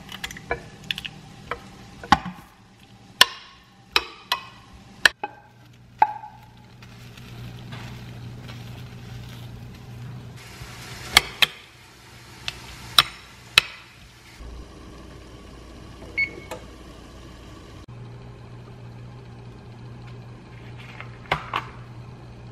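A metal spoon clinking and scraping against a ceramic baking dish as sauce, rice and vegetables are spooned in and stirred, in clusters of sharp clinks, over a steady low hum.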